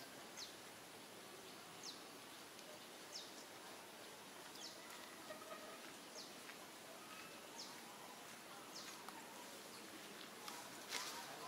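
A bird repeating a short, high, falling chirp about every second and a half over a faint steady background hiss, with a brief rustle near the end.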